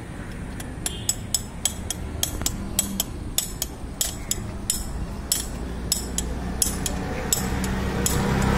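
A spanner used as a hammer tapping on a steel rod: light metal-on-metal strikes in an even rhythm of about three a second.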